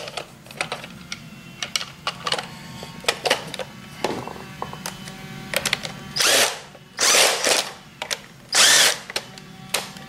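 Cordless drill-driver run in three short bursts, each about half a second, driving screws to close up the plastic brush-drive gearbox of a Hoover SteamVac carpet cleaner. Before the bursts come small plastic clicks and rattles of the housing halves being fitted together.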